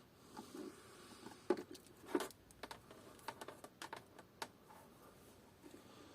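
Scattered light clicks and taps from handling a soldering iron and small parts at a workbench, the loudest a pair about one and a half and two seconds in, followed by a run of quick light ticks.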